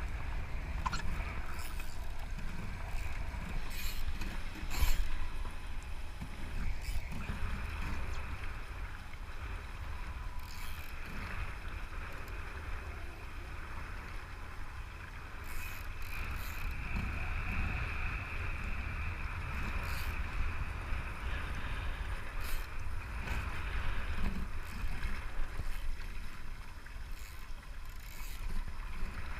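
Water rushing past a Voodoo foiling Moth dinghy under sail, with wind buffeting the microphone in a steady low rumble. Scattered sharp clicks and knocks come from the boat.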